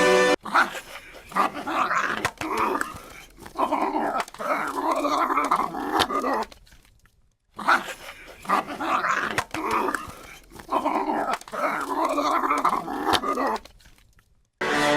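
Dog growling and barking in irregular bursts during a fight with a raccoon. The same stretch of about seven seconds plays twice, each time fading out.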